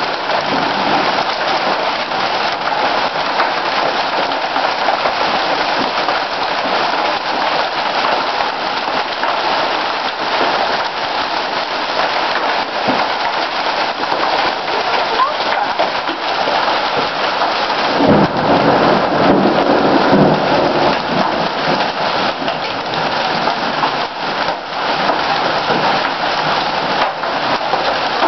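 Hail and heavy rain pelting down: a dense, steady clatter of countless small impacts. About two-thirds of the way through, a louder low rumble swells for a few seconds.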